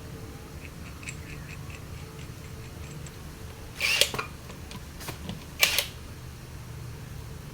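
Rusi RFi 175 scooter engine running with a steady low hum, a few light ticks, then two loud sharp knocks a second and a half apart. The clatter is put down by the mechanic to a loose bendix (starter drive) that keeps spinning and should be tight.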